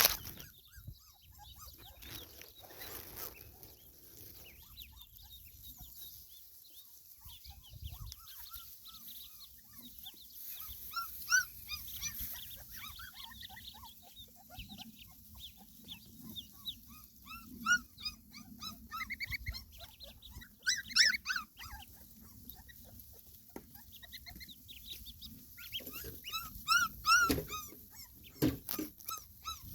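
Many short, high-pitched squeaky calls from a young animal, coming in scattered runs.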